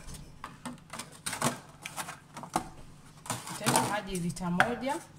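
Clicking and crackling of a thin clear plastic container being handled over a wooden cutting board, with a string of sharp taps and knocks. A woman's voice comes in briefly near the end.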